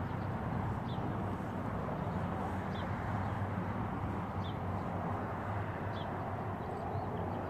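Outdoor background: a steady low rumble with faint short bird chirps every second or two.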